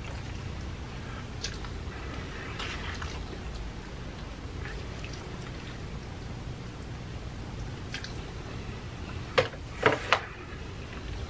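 Eating sounds: chewing and a metal spoon scooping food from an aluminium foil pan, over a low steady hum. Three sharp taps come close together near the end.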